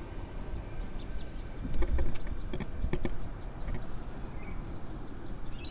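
Train passing through the station: a steady low rumble, with a run of sharp clacks between about two and four seconds in as the wheels cross rail joints.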